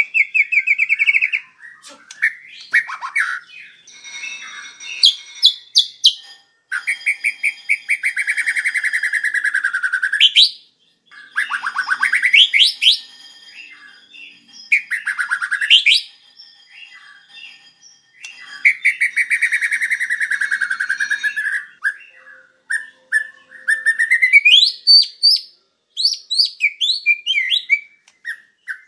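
White-rumped shama singing a long, varied song: fast rattling trills, whistles that swoop down and back up, and quick rising notes, in phrases a few seconds long with short pauses between them.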